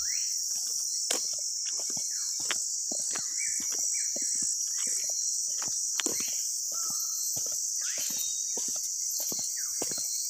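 Dense chorus of insects in a tropical forest before dawn, a steady high-pitched buzz, with irregular footsteps on a forest path.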